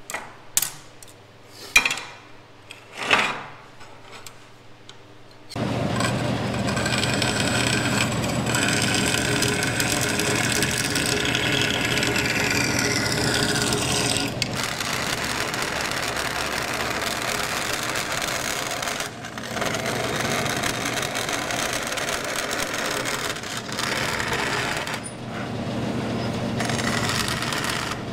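A few light clicks and knocks of metal parts handled on a steel workbench. Then, about five seconds in, a vertical band saw starts cutting aluminum angle and runs steadily to the end, with some tones sliding down in pitch partway through and two brief dips.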